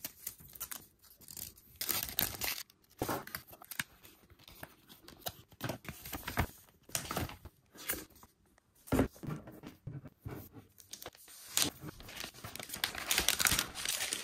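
Unboxing handling noise: paper and plastic packaging rustling and crinkling in irregular bursts, with light knocks as the power adapter, the sticker packet and the laptop are handled. A sharp knock about nine seconds in, and a longer rustle near the end.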